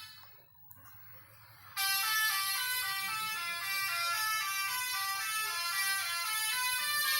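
A bus's 'telolet' horn, a set of tuned air horns, playing a fast tune of stepping high notes. It fades out at the start, leaves a short quiet gap with one click, and comes back in about two seconds in.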